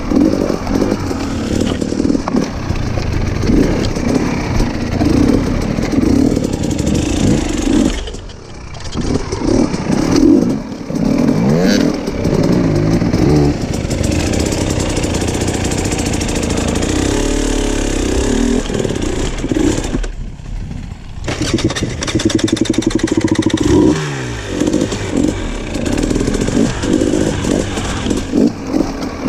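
Dirt bike engine running hard on a trail, revving up and down as the throttle changes, and dropping away briefly twice.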